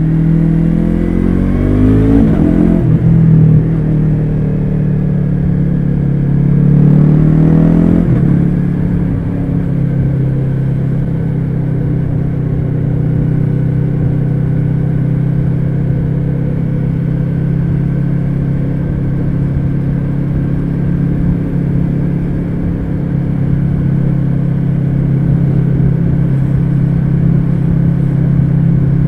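Yamaha R3's parallel-twin engine through a baffle-less Akrapovic carbon slip-on exhaust, accelerating with rising pitch. It shifts up about three seconds in and again about eight seconds in, then holds a steady cruise.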